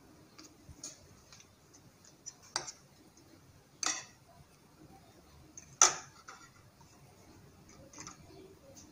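Scattered light clicks and clinks of a metal spoon against kitchen bowls, about four distinct ones, the loudest about six seconds in.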